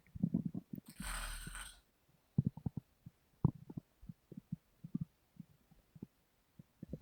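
Human stomach gurgling and rumbling: a run of irregular, quick low pops and bubbling gurgles. About a second in there is a short breathy hiss lasting under a second.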